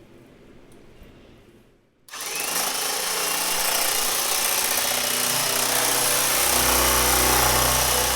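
A power tool switching on about two seconds in with a short rising whine as it spins up, then running steadily with a loud rushing noise.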